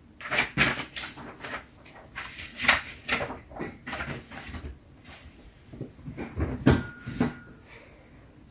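Handling noise of belongings being stowed under a bed: an irregular run of knocks, bumps and scrapes in several clusters, with a brief faint squeak near the end.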